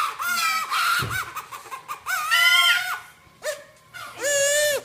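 Homemade paper puppeteer's whistle blown in three squawking, chicken-like blasts with a wavering pitch, the last one lower.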